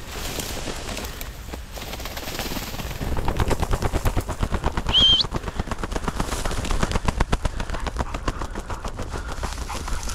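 Hen ring-necked pheasant beating its wings in rapid flurries as it is grabbed and held by hand, a fast flutter that runs from about three seconds in almost to the end. A single short high chirp cuts in about five seconds in.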